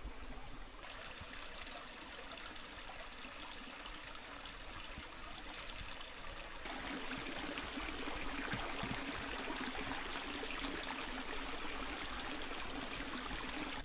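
Small mountain stream of clear, ice-cold water trickling and splashing steadily, louder from about seven seconds in.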